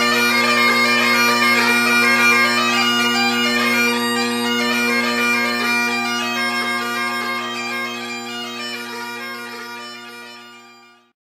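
Great Highland bagpipes, a vintage R.G. Hardie set from about 1950, playing a tune on the chanter over steady droning bass and tenor drones. The sound fades away over the last few seconds.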